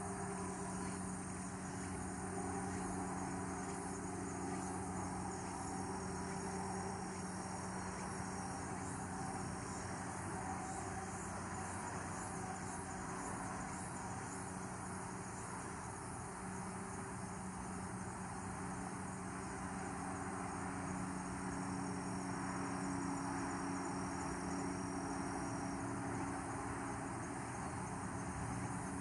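Insects singing in steady outdoor ambience. A high, thin note sounds twice for a few seconds each, over a steady low hum.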